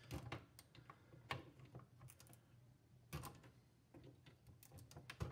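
Faint, irregular small clicks and scrapes of a thin flathead screwdriver tip working under a DRAM chip to pry it up from its socket on a circuit board, with a few sharper clicks among them.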